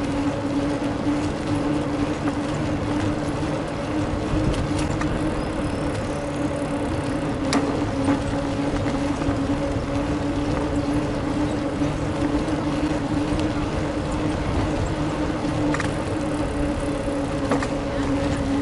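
Bicycle ride along city streets: a steady hum over rumbling road noise, with a few sharp clicks.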